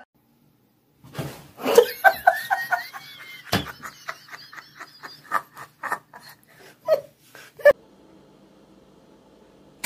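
A person laughing in a run of short bursts for several seconds, then stopping, leaving only a faint steady hum.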